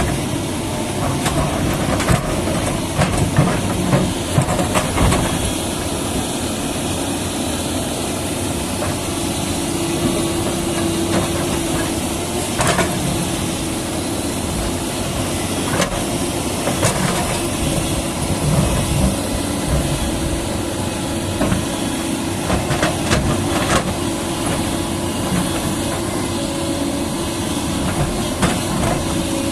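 Doosan excavator's diesel engine running steadily, with scattered sharp knocks and clanks from the machine at work.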